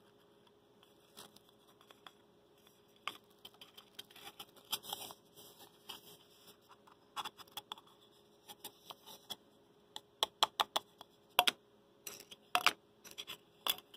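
Small clicks, taps and handling noises of a low-temperature-differential Stirling engine kit being taken apart: the blue displacer disc and its rod are lifted out of the clear plastic cylinder on its aluminium base plate. The clicks are scattered at first, then come quicker and louder over the last few seconds.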